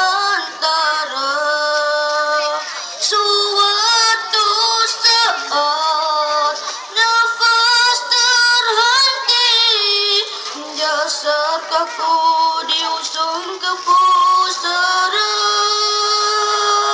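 Boys' voices singing a Malay nasyid through microphones and a PA, with long held notes and wavering ornaments.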